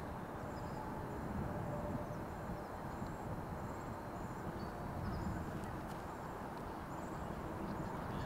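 Outdoor ambience: a steady low rumble of background noise with faint, short high chirps repeating throughout.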